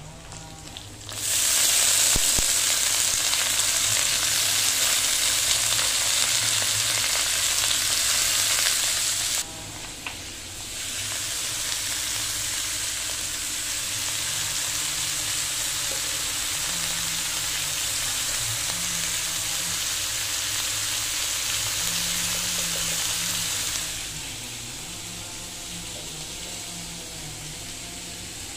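Chopped vegetables with onion and garlic sizzling as they fry in hot oil in a pan, stirred with a perforated metal spatula. The sizzle starts about a second in, dips briefly around nine seconds, comes back a little softer, and falls away near the end.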